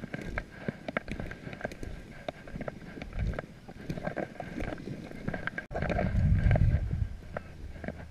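Footsteps crunching and rustling through dry grass and brush, with a loud low rumble on the microphone about six seconds in.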